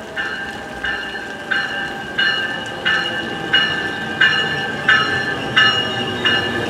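NJ Transit passenger train pulling into the station with its locomotive bell ringing steadily, about one and a half strikes a second, growing louder as the train draws near, over the rumble of the train running in.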